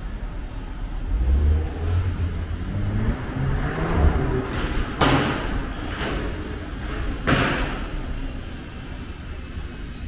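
A heavy vehicle's engine rumbles and revs up, rising in pitch over the first few seconds, then two loud bangs about two seconds apart.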